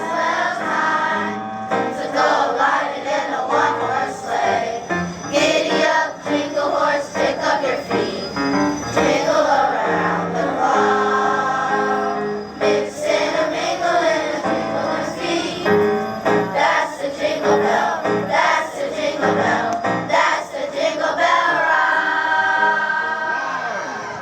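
A children's choir singing with musical accompaniment, ending on a long held note near the end.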